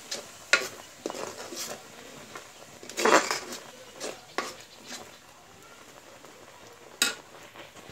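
Metal spoon scraping and knocking against a kadai while stirring thick semolina pudding, in irregular strokes, with a longer scrape about three seconds in and a sharp knock near the end.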